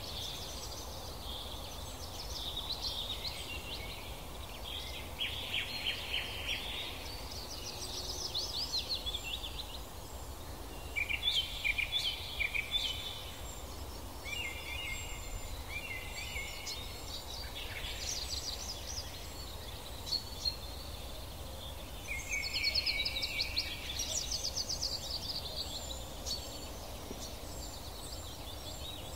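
Small songbirds singing in repeated bursts of quick high chirps and trills every few seconds.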